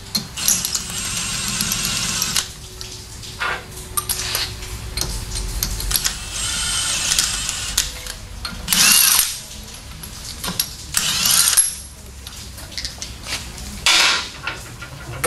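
A hand-held power tool, drill-type, running in several short bursts with sharp metallic clicks between them, as lug nuts are being run onto wheel studs to test their threads.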